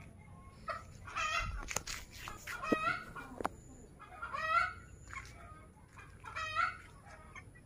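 Chickens calling: four short calls, roughly one every one and a half to two seconds, with a few sharp clicks in between.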